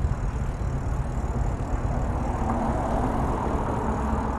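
Steady low rumble of a car driving slowly, engine and tyre noise heard from inside the car, with a hiss that grows a little louder about halfway through.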